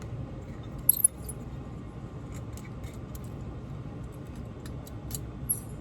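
Small metal jewelry tools and pieces clinking and tapping on a workbench: a sharp clink about a second in, then scattered light ticks.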